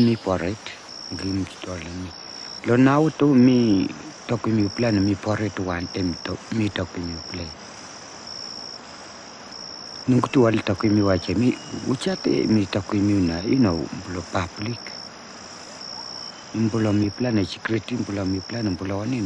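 A man speaking in his own language in several stretches, with an insect chirping steadily behind him: one short high chirp a little more than a second apart.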